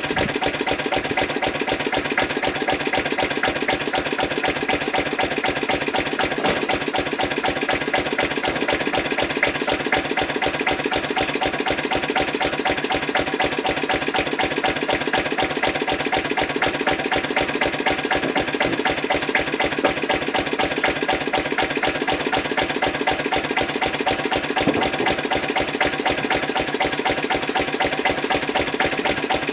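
Lister CS single-cylinder diesel stationary engine running steadily with an even, regular beat.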